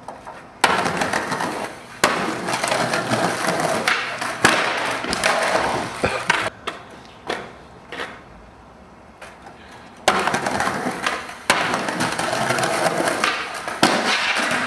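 Skateboard wheels rolling on concrete, with sharp clacks and scrapes of the board on the rail and ground, in two runs: the first starts about half a second in, the second about ten seconds in.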